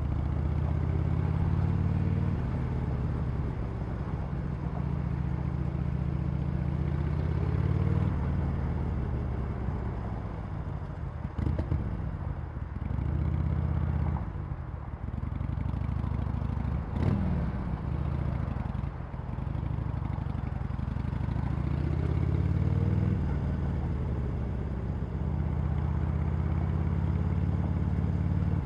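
Harley-Davidson Sportster Iron 883's air-cooled V-twin on its stock exhaust, under way. The engine pitch climbs, drops back at each gear change or throttle lift, and climbs again several times, with a couple of short sharp cracks between.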